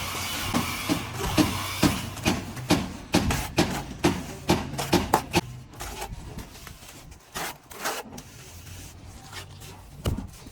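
Plastering trowel working plaster on a wall: short scraping strokes, about two to three a second, thin out after about five seconds to occasional scrapes and taps. A steady machine hum fades out in the first second or two.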